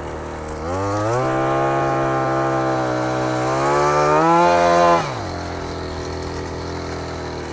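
Small engine revving up to full throttle about a second in, holding, climbing higher, then dropping abruptly back to a low idle about five seconds in. The owner says it loses power whenever it runs through water.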